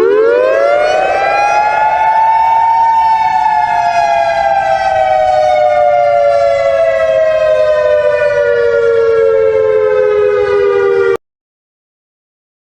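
Outdoor civil-defense warning siren winding up quickly to full pitch, then slowly winding down as two close tones. It cuts off abruptly about eleven seconds in.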